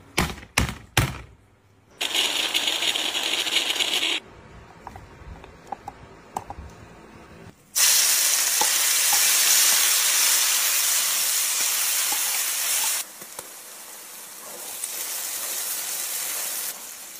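A few sharp knocks as lemongrass stalks are bashed with a heavy object, and a short stretch of steady noise. Then a spice paste sizzles loudly as it drops into hot oil in a wok, easing to a quieter sizzle while it is stirred.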